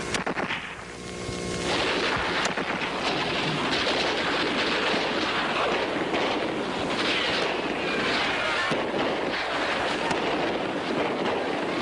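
Sustained crackle of battle gunfire with a few sharper cracks standing out, from about two seconds in.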